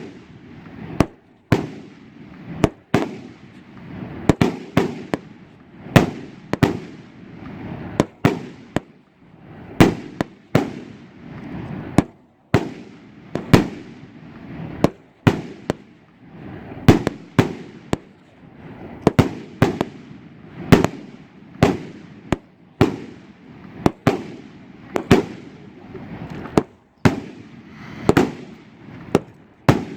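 A 100-shot salute cake firing without pause, its shells bursting as sharp, loud bangs about one to two a second at uneven spacing, with a lower rumble between the bangs.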